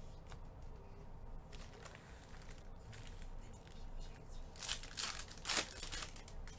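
Foil trading-card pack wrappers crinkling as a gloved hand pulls a pack from the stack, with a few loud rustles about two-thirds of the way in after quieter card handling.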